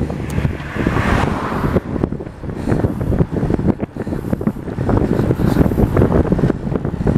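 Wind buffeting the microphone of a camera riding along at about 30 km/h, with uneven gusts and many small rattles and knocks.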